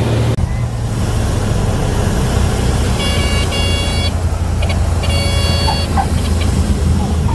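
Single-engine propeller airplane's engine running steadily, heard from inside the cabin, as the plane rolls along the runway. A cockpit warning horn sounds in short pulsing chirps about three seconds in and again about five seconds in.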